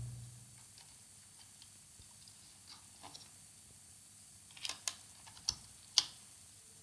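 Light clicks and taps of a replacement laptop fan and its small screws being handled and fitted inside an opened MacBook Pro. There is a dull knock right at the start, then a few scattered ticks, then a cluster of sharper clicks from about four and a half to six seconds in, the last one the loudest.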